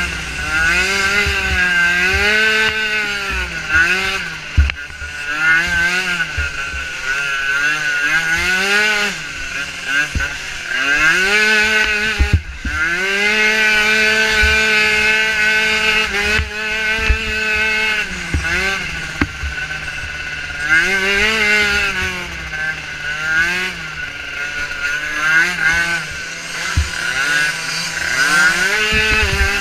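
Small micro ATV engine racing. It revs up and falls back again and again as the throttle is worked, holding high for a few seconds about midway, with occasional low thumps.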